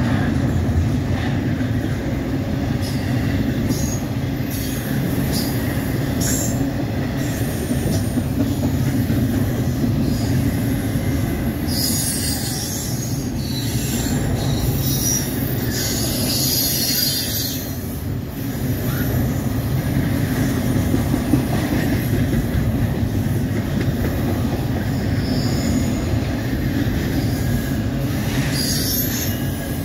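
Double-stack intermodal well cars rolling past: a steady low rumble of steel wheels on rail, with high-pitched metallic squeals coming and going, strongest a little before the middle and again near the end.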